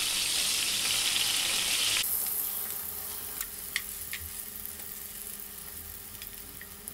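Zucchini rounds sizzling in hot olive oil in a frying pan, with a few light clicks of metal tongs as slices are lifted out. The sizzle drops sharply about two seconds in and carries on fainter.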